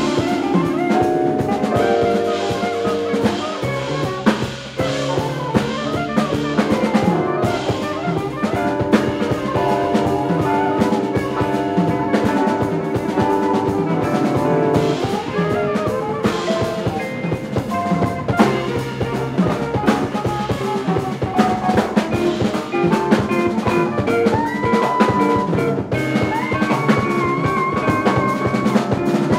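Jazz quintet of saxophone, guitar, keyboard, bass and drum kit playing a minor-key twelve-bar blues in a five-beat meter grouped 3+2+3+2, with a haunting, raga-like melody over busy drumming. Long held melody notes come in near the end.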